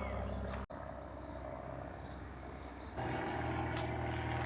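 Steady low rumble of vehicle traffic or an engine. It breaks off for an instant about two-thirds of a second in and grows louder from about three seconds in.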